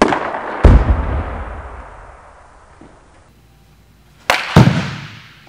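Two swings off a batting tee: each time the bat cracks against the baseball, and a fraction of a second later the ball thuds into the back of the batting cage. The first hit rings out and echoes for about two seconds; the second comes about four seconds in.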